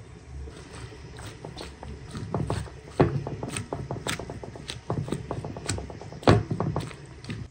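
Wooden spoon stirring chopped tomatoes and peppers in a large pan: vegetables shuffling and the spoon clacking against the pan in quick irregular clicks, with two loud knocks about three and six seconds in.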